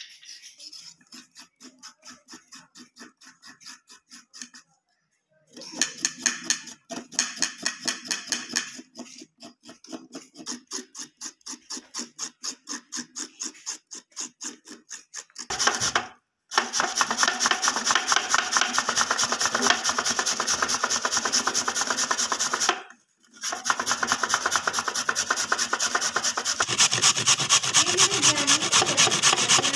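A knife scraping the skin off red carrots in quick, rhythmic strokes, then, from about halfway through, louder and faster rasping as the peeled carrots are rubbed back and forth on a metal grater.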